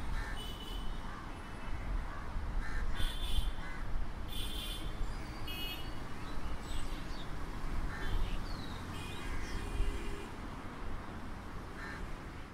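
Busy street ambience: a steady low rumble of traffic and people, with short, harsh bird calls repeating every second or so over it.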